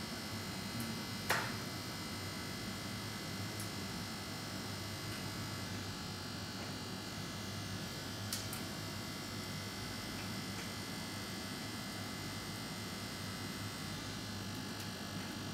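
Steady electrical buzz and hum, with a sharp click about a second in and a fainter click about eight seconds in.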